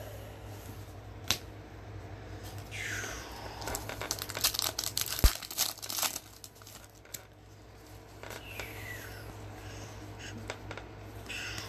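Foil hockey card pack wrappers crinkling and tearing as packs are cut open, with scattered clicks of cards being handled. There is one sharp knock about five seconds in, over a steady low hum.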